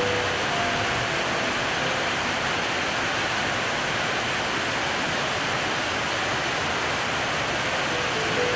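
Heavy rain falling steadily on corrugated and tiled roofs and pouring off the eaves, an even, unbroken hiss.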